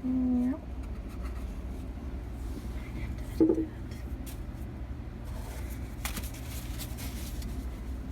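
A steady low hum with faint scraping and handling noises. A short meow comes at the very start, and a brief call follows about three and a half seconds in.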